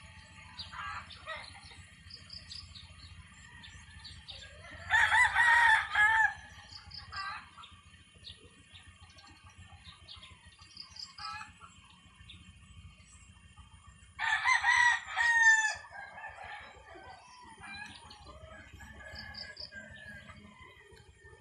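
A rooster crowing twice, each crow about a second and a half long and the loudest sound, about nine seconds apart. Small birds chirp in short high notes between the crows.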